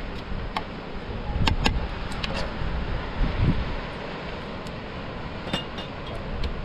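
Several light clinks and taps, a few close together early and one more later, over a steady rushing noise.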